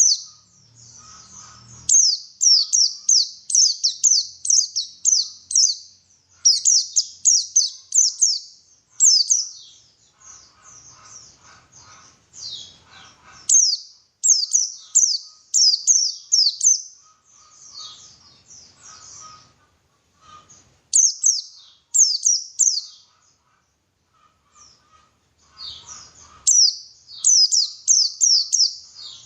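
White-eye (pleci) singing in repeated bouts of quick, high, sweeping chirps, each bout one to three seconds long with short pauses between. This is a lure song of the kind played to prompt caged white-eyes to sing.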